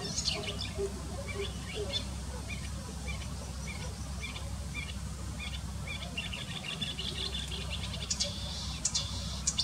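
An Acrocephalus warbler singing: a string of short chattering and chirping notes that quicken into a dense, rapid run about seven seconds in. A steady low rumble lies underneath.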